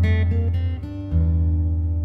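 Background music on acoustic guitar, chords strummed, with a change of chord about a second in.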